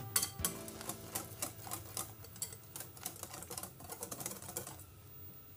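Wire whisk beating pancake batter in a glass bowl: rapid, irregular clicks of the wires knocking against the glass, stopping near the end.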